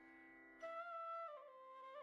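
Quiet background music carrying a melody: one note held, then a new, louder note about half a second in that slides down and climbs back up near the end.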